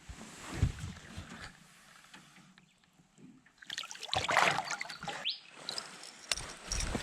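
Knocks and handling sounds in a small boat on the water, with a short burst of splashing or rustling noise about four seconds in.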